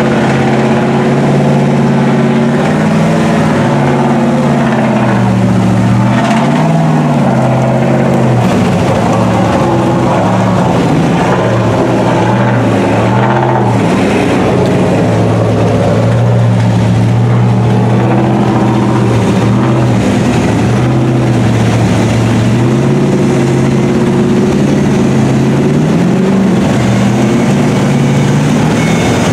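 Lifted mud trucks' engines running at low revs as they wade through deep flood water, with a few short throttle blips (about 3 s in, around 6–7 s and near the end).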